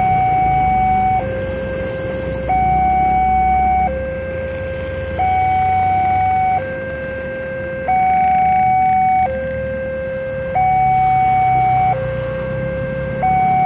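Railroad crossing warning alarm sounding from the signal post's loudspeaker: an electronic two-tone signal that alternates steadily between a higher and a lower tone, each held about a second and a half. It signals that a train is approaching and the barrier is down.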